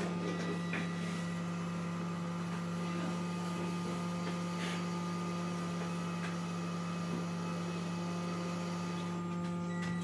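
Hot-air rework station blowing steadily from its handpiece, a constant hum with an even hiss, while it heats the solder of small surface-mount components on the motherboard so they can be swapped.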